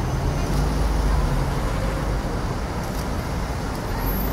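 Freight train of grey tank wagons rolling past on the main line, a steady low rumble of wheels on the rails.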